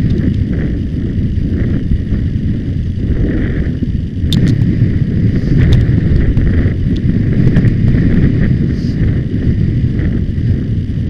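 Steady loud wind rumble buffeting a helmet-mounted camera's microphone as the horse goes at speed across grass.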